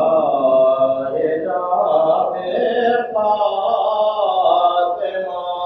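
A man's voice chanting a devotional mourning recitation in long, held melodic lines, with no pause.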